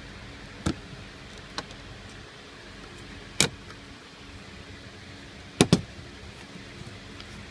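Sharp clicks and knocks of a thin metal tool and plastic dashboard trim as the headlamp switch panel is pried loose, about five in all with the last two close together. They sit over a faint steady hum.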